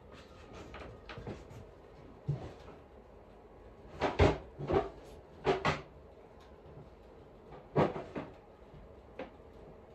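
Cupboard doors and drawers knocking as they are opened and shut: a run of four or five knocks a little before halfway, one louder knock later, and a light tap near the end.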